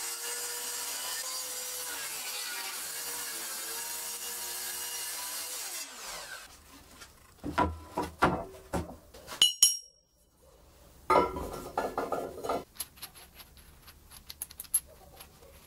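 A handheld circular saw cutting through chipboard, its pitch sliding down as it is switched off and spins down about six seconds in. Then comes a run of loud knocks and a sharp ringing metallic clink as the cut chipboard panel is set onto a welded steel frame, followed by a burst of lighter clatter.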